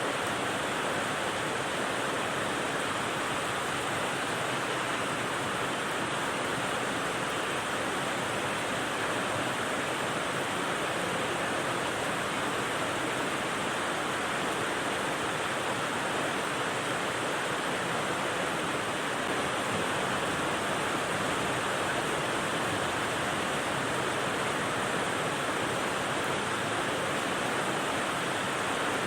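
Rain white noise: a steady, even hiss with no separate drops, knocks or changes, strongest in the middle of the range.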